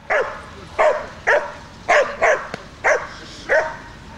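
Shepherd dog barking at a protection-training decoy: seven sharp barks, roughly two a second.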